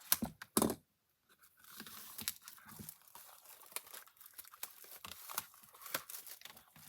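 The wrapping on a pack of designer series paper being torn open and crinkled by hand. Two sharp snaps come in the first second, then after a short pause a run of crackling and rustling.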